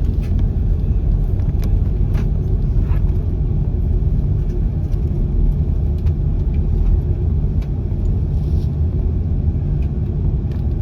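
Steady low rumble of an Airbus A330-300 heard from inside the passenger cabin: its Rolls-Royce Trent 700 engines and the airflow over the fuselage, with a faint steady hum and a few small clicks.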